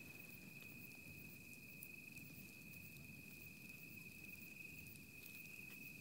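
Near silence: faint room tone under a steady, high-pitched cricket trill.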